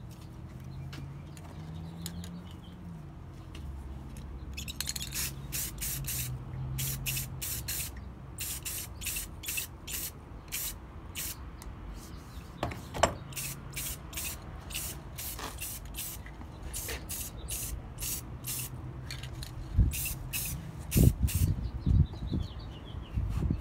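Aerosol spray paint can sprayed in many short hissing bursts, about two a second. A few low knocks follow near the end as the piece and can are handled.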